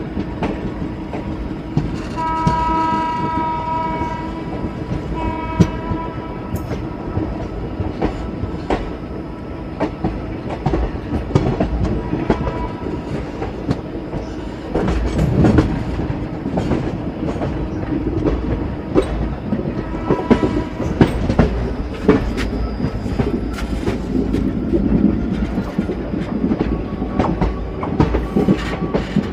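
Moving ICF passenger train heard from on board: a steady rumble with wheels clicking and clattering over rail joints. A train horn sounds about two seconds in, with a second blast around five seconds and fainter toots later.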